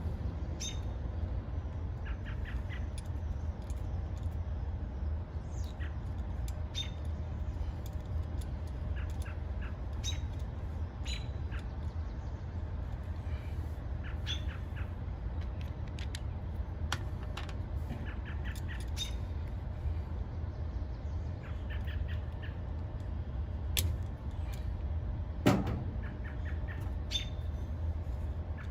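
Birds chirping in short, scattered runs of quick high notes over a steady low rumble, with a sharp click about 25 seconds in.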